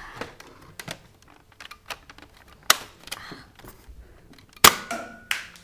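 Plastic clicks and knocks from a Nerf Longshot blaster being handled, its parts worked by hand. There are scattered light ticks and two sharp clicks about two seconds apart; the second, near the end, is the loudest.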